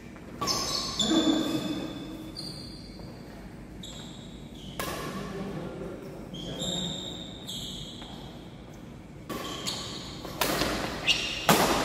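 Badminton doubles rally: sharp hits of rackets on the shuttlecock every few seconds, quickening near the end, with players' shoes squeaking on the court floor in between.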